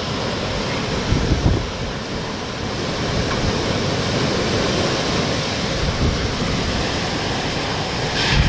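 Hurricane wind rushing steadily, with gusts buffeting the microphone about a second in and again near the end.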